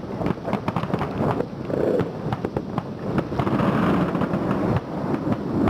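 Fireworks crackling: many rapid, sharp pops in quick succession. After about three seconds they merge into a louder, steadier rushing noise.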